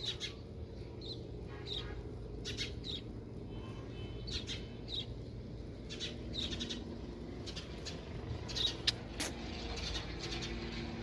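Small birds chirping in short, scattered calls, with a few sharp clicks over a steady low background noise.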